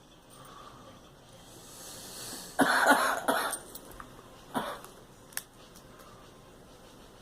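A girl coughing: a rising breath, then a harsh fit of two or three coughs about two and a half seconds in, and one shorter cough about a second later.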